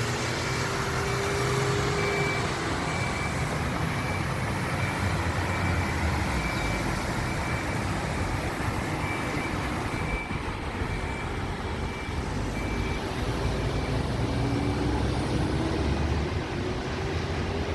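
Heavy rain and traffic on a wet road: a steady hiss over the low rumble of vehicles. Engines pass near the start and again near the end. A short high electronic beep repeats a little more than once a second, like a vehicle's reversing alarm, until near the end.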